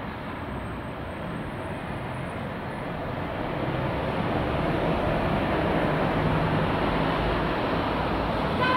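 Airbus A330-243's Rolls-Royce Trent 700 turbofan engines as the airliner climbs away: a steady jet roar that grows louder about halfway through and then holds.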